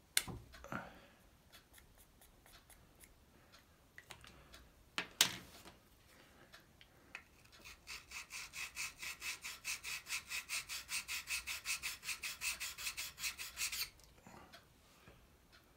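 A steel chisel rubbed quickly back and forth on an MPower FastTrack Mk2 sharpener's abrasive plate, about four or five even strokes a second for some seven seconds: the back of an old, gouged chisel being flattened. A couple of sharp knocks come first, as the chisel is set on the sharpener.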